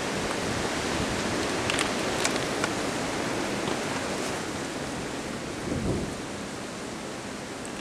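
Windstorm wind blowing in a steady rushing hiss, with a gust buffeting the microphone in a low rumble about six seconds in. A few faint clicks or taps sound around two seconds in.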